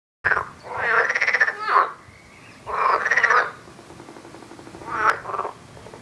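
Green water frog croaking in a series of loud, rapidly pulsed rattling calls: two long calls, then shorter ones near the end.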